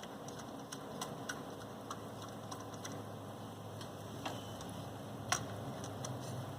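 Scattered small clicks and taps of computer hardware being handled while a CPU and its cooler are fitted, irregular, with one sharper, louder click about five seconds in, over a steady low hum.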